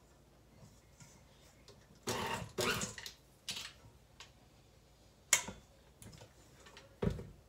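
A tilt-head stand mixer, switched off, being handled: sharp clicks about a third and two-thirds of the way in and a dull clunk near the end as its head is worked. A short double rasping noise comes about two seconds in.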